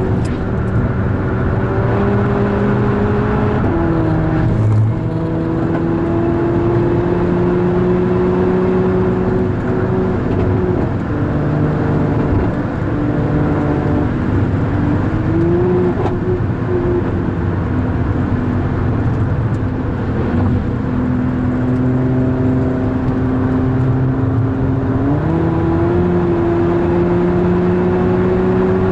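VW Golf 6R's turbocharged 2.0-litre four-cylinder engine running hard under load on track, its note holding steady for long stretches. The pitch drops a little about four seconds in, dips and climbs again near the middle, falls lower a few seconds after that, and rises again near the end, as the car shifts and changes speed.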